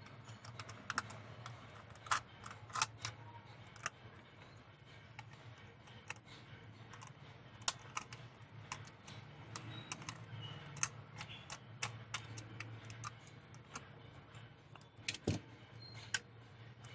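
Irregular small clicks and taps of plastic parts and tools being handled and pried on a Sony Handycam camcorder while its LCD screen housing is taken apart, over a faint steady low hum.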